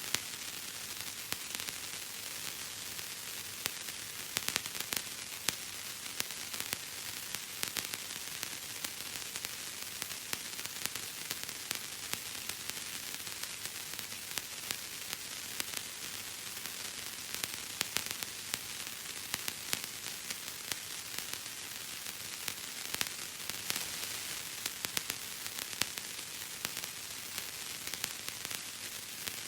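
Bubble wrap being squeezed and popped: a dense, irregular crackle of small pops over a steady hiss.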